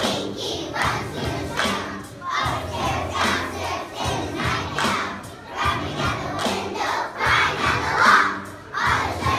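A large group of kindergarten children singing in unison at the top of their voices, close to shouting, in short repeated phrases over recorded music.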